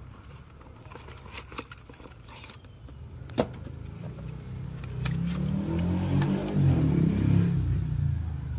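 A motor vehicle's engine passing close by, swelling from about five seconds in and loudest near seven seconds. Before it, light rustling and clicks of a taped cardboard package being opened, with one sharp click about three and a half seconds in.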